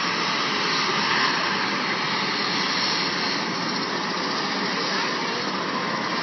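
Helicopter running on the ground with its rotor turning: a steady, even engine and rotor noise that holds at one level throughout.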